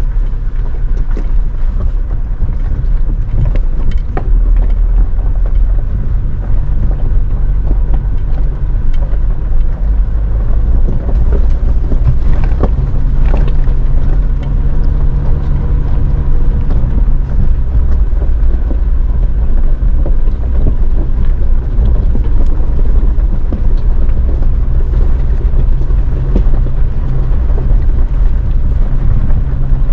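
Toyota Hilux driving over a rough gravel track, heard from inside the cab: a steady low engine and tyre rumble with scattered knocks and rattles.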